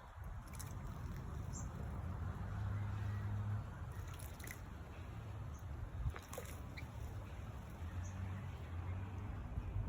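Birds bathing in a bird bath: scattered water splashes and drips, with a few brief high chirps, over a low steady hum.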